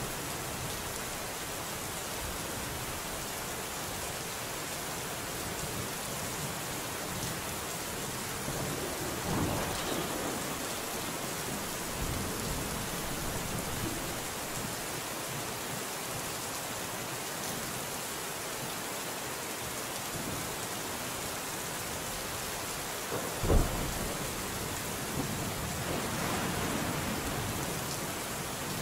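Steady rainfall with thunder: a low rumble about a third of the way in, then a sharp, loud thunderclap about two-thirds in, followed by a longer rolling rumble.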